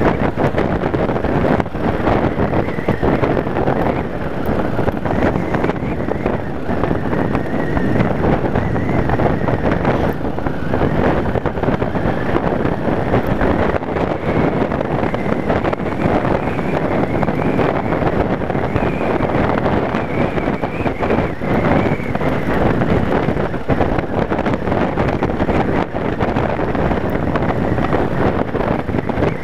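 Steady rush of wind over the microphone while riding a Yamaha Wild Star cruiser at road speed, with its V-twin engine running underneath.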